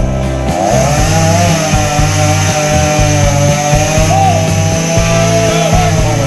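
Rock music with a distorted electric guitar holding long, bending notes over bass and drums.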